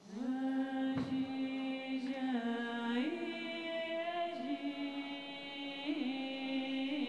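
Recorded music intro: a single voice chanting slowly in long held notes, sliding between a few nearby pitches, with no accompaniment.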